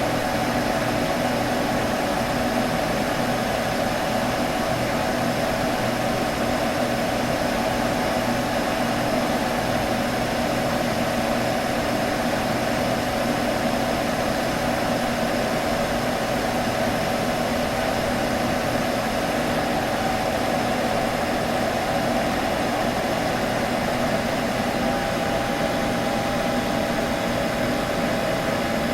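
Computer buzzing: a steady electrical hum with a hiss over it, unchanging throughout.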